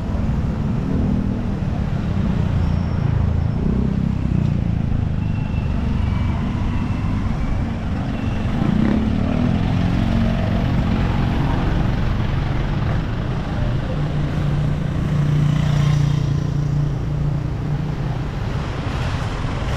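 Street traffic: motorcycle-driven tricycles and cars running and passing close by, a continuous low engine rumble. A steadier engine drone swells about three quarters of the way through.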